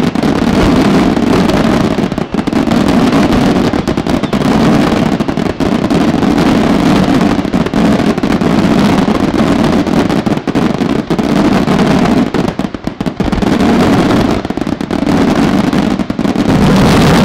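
Fireworks display firing a dense, continuous barrage: aerial shells bursting and crackling in quick succession with ground-launched pieces, the bangs overlapping with hardly a gap.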